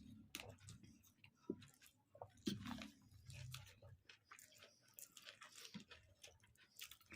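Faint chewing and mouth sounds of a person eating with a full mouth, with scattered small clicks and a few louder smacks in the first few seconds.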